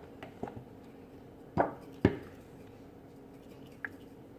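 A utensil knocking against a mixing container while slime is stirred: two sharp knocks about half a second apart, with a few lighter taps.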